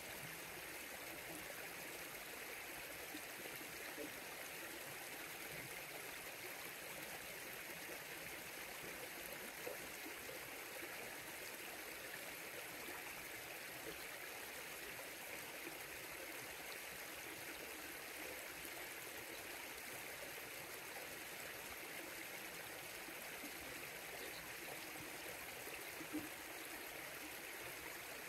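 River water flowing steadily over rocks, a constant rushing and trickling.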